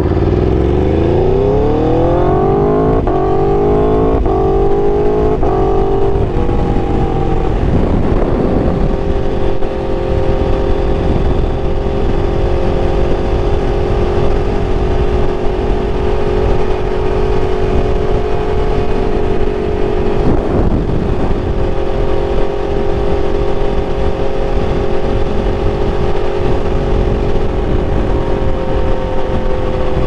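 Aprilia RSV4's V4 engine through an SC-Project full exhaust system, heard from the rider's seat. It accelerates with the revs climbing for about the first six seconds, then runs at steady revs while cruising, with wind rush on the microphone.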